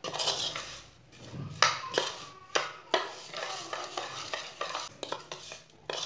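Metal spoon stirring chopped capsicum, green chillies and onion with dry spices in a bowl: irregular scraping, rustling strokes with a few sharper knocks of the spoon against the bowl.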